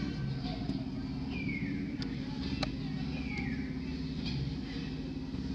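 A steady low engine-like drone, with two short high-pitched calls that fall in pitch, one about a second and a half in and another a couple of seconds later, and a single sharp click between them.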